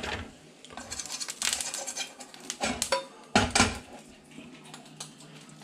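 Kitchen utensils clinking and knocking against dishes and a pan in a quick irregular run of clatters. The loudest knocks come about three and a half seconds in.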